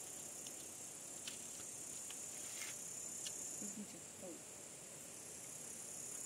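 Insects chirring steadily in a high-pitched continuous hum, easing slightly a little past halfway, with a faint voice heard briefly.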